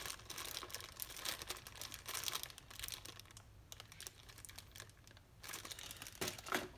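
Light, irregular clicking and crinkling of a packaged carburetor tune-up kit being handled, easing off for a couple of seconds in the middle.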